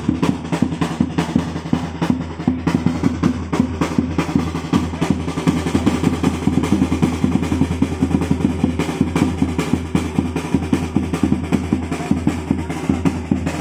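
Marching snare drums played by a street drum band in a fast, steady rolling beat.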